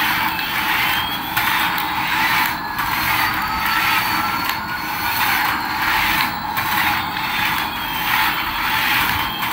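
Battery-powered radio-control toy Airbus A380 driving on a tile floor, its small speaker playing a looping jet-engine roar over the whir of its drive motor. The hissy roar dips about once a second, with a faint whistle slowly rising through it.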